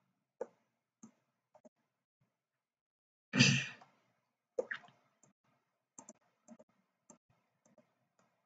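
Scattered light clicks of a computer mouse and keyboard, with one loud breathy sigh into the microphone about three and a half seconds in.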